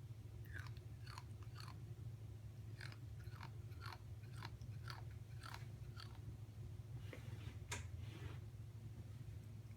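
Teeth grinding: a run of short, squeaky grating scrapes, about one or two a second, each sliding slightly down in pitch, that stop near the end, over a steady low hum.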